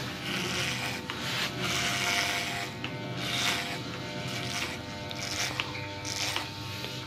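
Electric hair clipper with a guard comb running steadily and cutting short grey hair, its hum overlaid by a rasping hiss that swells with each stroke through the hair.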